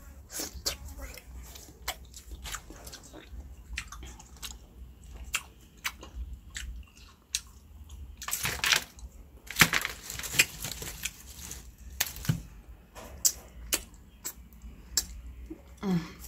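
Close-up sounds of lychees being eaten: biting and wet chewing of the fruit's flesh, mixed with small crackles and clicks as the rough rind is peeled by fingers. The loudest crackling comes about halfway through.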